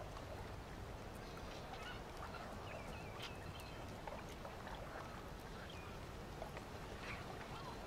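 Faint scattered short bird calls over a steady low background hiss.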